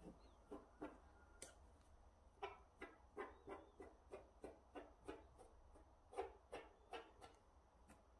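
Faint, repeated brushing strokes of a plastic comb drawn through the cord fringe of a macrame wreath, a few scattered strokes at first, then about two or three a second.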